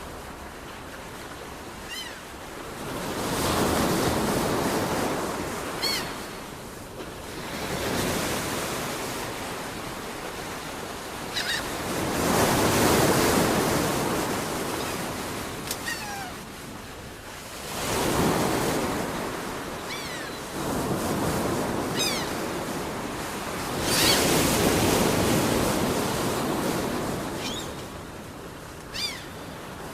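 Waves washing in with a slow surge and fall every five or six seconds, while birds give short, downward-sliding mewing calls now and then.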